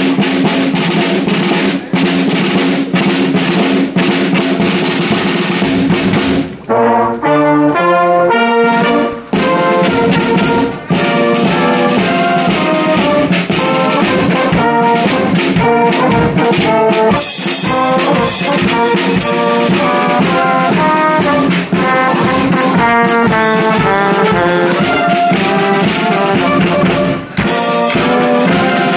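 Amateur brass band playing: trumpets, trombones and tuba over a drum kit. It opens with drumming under a held low chord, and the brass takes up the tune about six seconds in.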